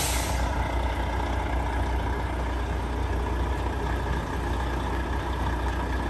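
Volvo heavy truck's diesel engine idling steadily, with a short hiss of air right at the start.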